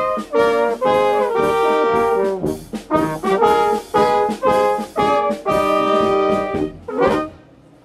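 Brass band playing a tune, several horns sounding notes together in short phrases, ending on a final note about seven seconds in.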